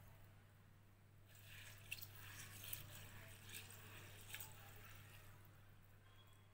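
A hand swishing and rubbing pearl millet grains in water in a steel bowl to wash them: faint splashing that starts about a second in, with four small splashes, and dies away near the end. A low steady hum lies underneath.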